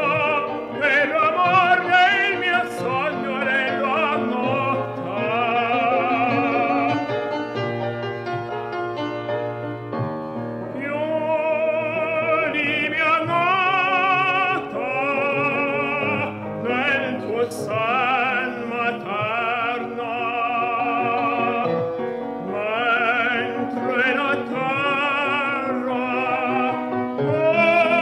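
Operatic tenor singing an Italian art song in full voice, with piano accompaniment. The held notes carry a wide vibrato.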